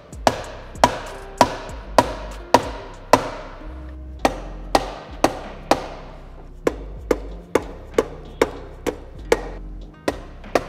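Red mallet striking the aluminium case halves of a Subaru FA24 flat-four short block to break the RTV seal between them: a run of sharp knocks, about two a second, each with a short ring, with brief pauses between groups of blows.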